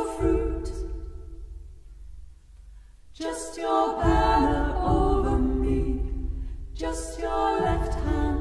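Female vocal trio singing a cappella in close harmony: three phrases, each ending on a held chord, over a low hum.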